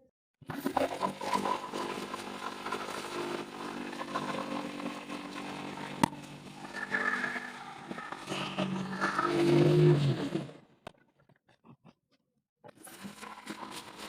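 Electric woodworking power tool running for about ten seconds, with a sharp click about six seconds in and the loudest stretch just before it stops. It starts up again near the end.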